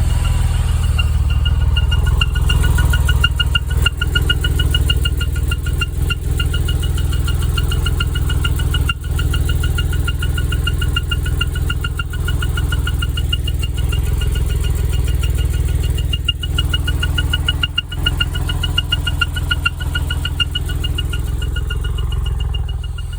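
Porsche 996 flat-six engine idling, with a high-pitched whistling squeak that pulses rapidly and evenly over the engine's steady low running, coming from cylinder bank 2. Its cause is unknown to the owner.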